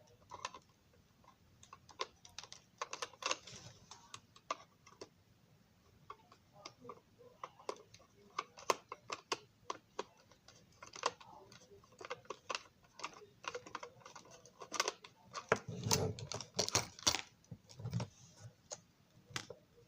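Scattered small clicks, taps and light scrapes of a small screwdriver and fingers working on a plastic model railroad dome car, with a cluster of louder knocks near the end.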